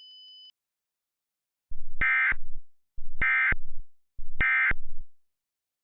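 Emergency Alert System digital data tones: three short, identical bursts about a second apart, the end-of-message code that closes an EAS broadcast.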